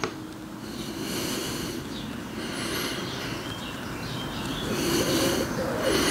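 A squeezed plastic bottle of PVA white glue spluttering and squelching as glue and air are forced out of its nozzle along a wooden joint, in uneven spurts about a second long, with some squeaky wavering tones near the end.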